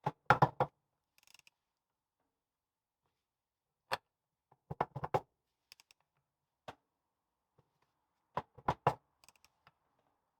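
Short clusters of metallic clicks and knocks from a Land Rover Series 2 differential's crown wheel being rocked by hand against the pinion, taking up the backlash in the gear mesh as it is checked.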